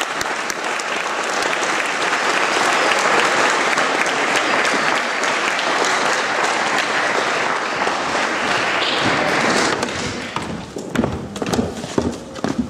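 A large audience clapping and cheering, which dies away suddenly about ten seconds in, leaving scattered knocks and thumps.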